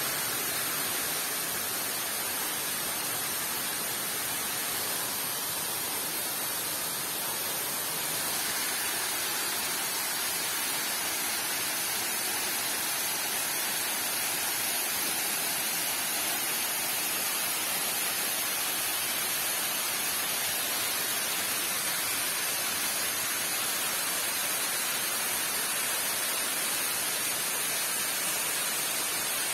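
Steady rushing noise of falling water, growing slightly brighter and louder about eight seconds in.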